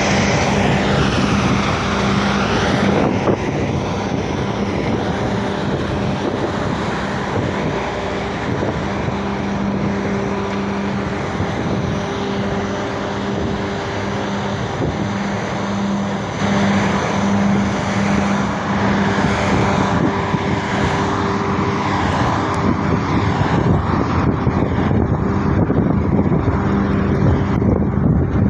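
A large engine running steadily with a constant low hum.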